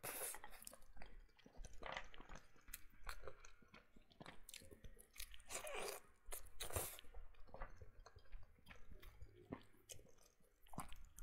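Close-miked eating sounds: a person biting and chewing sesame-topped chicken wings and pulling the meat off the bones, in irregular short clicks and bites.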